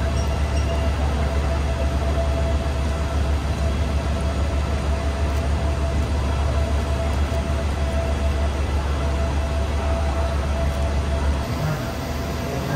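Diesel train engine idling: a steady low rumble with a faint steady hum above it. The rumble drops away abruptly about eleven seconds in.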